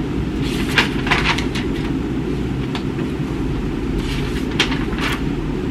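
Steady low background rumble, with a few short faint rustles about a second in, near three seconds and near five seconds.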